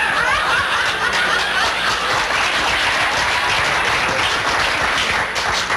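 Audience applauding: steady, dense clapping throughout.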